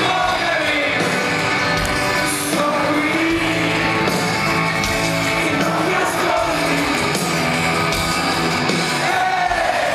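Live rock music with singing, a full band playing at concert volume on a big PA, heard from inside the audience.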